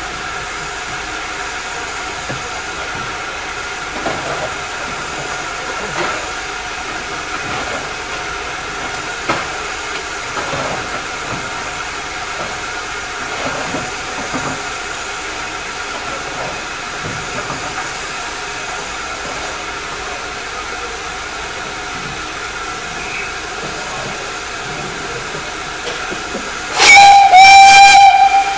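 Hughes-Fowler 'Crab' 2-6-0 steam locomotive standing with a steady hiss of steam escaping from its safety valves. Near the end its steam whistle sounds loudly for about a second and a half, a short note and then a longer one.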